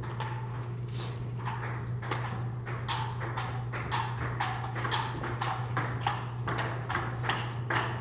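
Table tennis rally: the celluloid ball clicking off the paddles and bouncing on the table, about two to three sharp hits a second, over a steady low hum.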